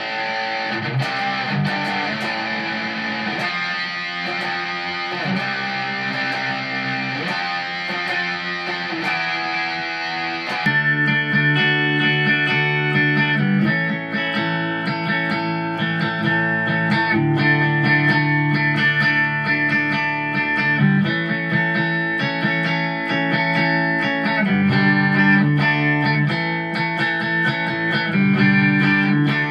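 Electric guitar played through presets of an M-VAVE MK-300 multi-effects unit. About ten seconds in, it switches to a different preset: a hazy, hissy distorted tone gives way to clearer, fuller notes that are a little louder.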